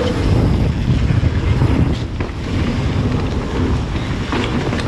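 Wind buffeting the camera microphone as a mountain bike is ridden fast down a dirt trail: a steady, loud, low rumble with a few brief knocks from the bike and trail.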